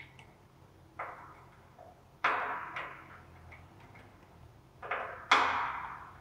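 Screwdriver working the small screws that fasten a dial gauge onto its metal adapter ring on the tank: about five sharp metallic clicks and scrapes, each with a short ringing tail. The loudest comes about five seconds in.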